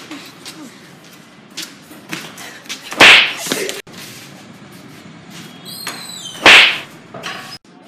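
Two loud, sharp cracks about three and a half seconds apart, each with a brief swishing tail, over faint background noise.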